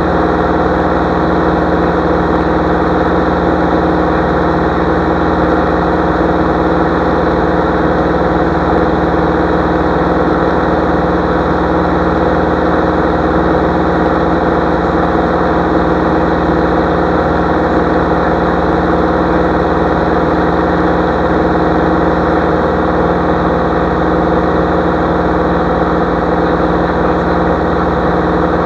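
Single-engine light aircraft's piston engine and propeller running steadily in flight, heard inside the cockpit as an even, unchanging drone.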